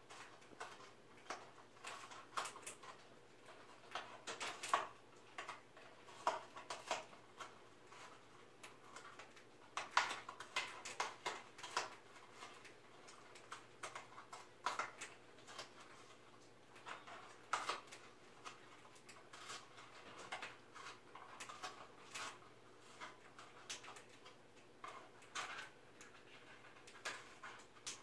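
Umbrella cockatoo biting and chewing a cardboard tube with its beak: irregular small crunches and clicks, several a second, with a few louder ones about five and ten seconds in.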